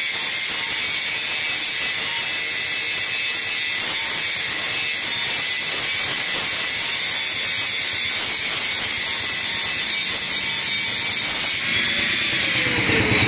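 Stick-welding arc on steel, a steady crackling hiss. About twelve seconds in it gives way to a different sound with falling tones.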